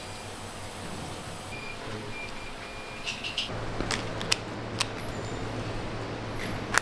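Workshop hum with three short electronic beeps, then a few sharp plastic clicks and taps as earbud charging cases are handled.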